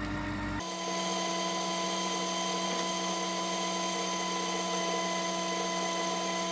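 Silvercrest Monsieur Cuisine Edition Plus food processor's motor running its kneading program on dough, a steady high whine of several tones. The sound changes slightly about half a second in, when a low hum drops away.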